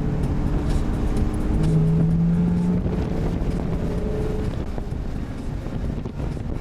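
2005 Pontiac GTO's 6.0 L LS2 V8 running through Kooks long-tube headers and a Spintech exhaust, a steady low drone heard from inside the cabin while driving. The note swells and grows louder about two seconds in, then settles back.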